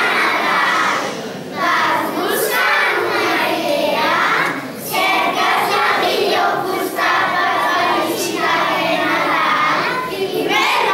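A class of about sixteen young children voicing loudly together in unison, in short phrases with brief breaks between them.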